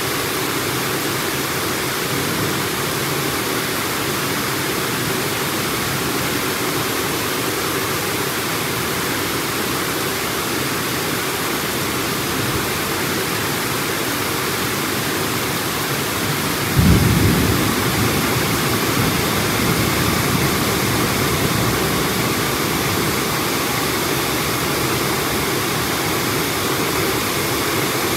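Heavy rain falling in a steady hiss, with a clap of thunder about two thirds of the way through that breaks in suddenly and rumbles away over several seconds.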